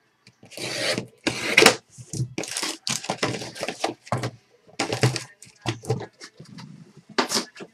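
Cardboard trading-card boxes and packs being handled, slid and moved about by hand: a quick run of short scrapes, rubs and rustles of card and packaging.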